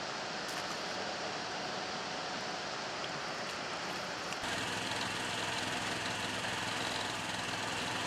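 A steady hiss of background noise, then, after an abrupt change about halfway through, an engine running steadily at an even pitch.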